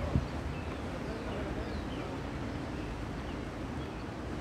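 Wind rumbling on the microphone, with one sharp thump just after the start as an inline skate comes down on the concrete beside the camera.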